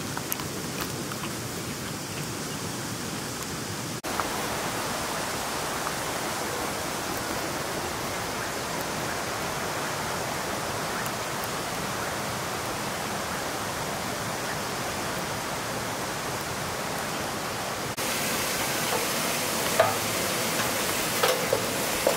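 Steady outdoor rushing noise that jumps a little louder about four seconds in and again near the end, where a few faint clicks and short sounds come through.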